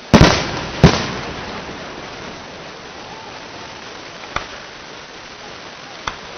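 Aerial firework shells bursting: two loud bangs less than a second apart near the start, each trailing off in echo, then two fainter sharp pops later on.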